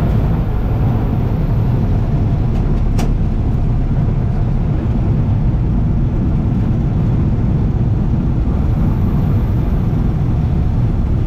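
Cessna 170B's six-cylinder Continental engine idling as the plane taxis on a gravel runway, heard from inside the cockpit as a steady low rumble. A single sharp click about three seconds in.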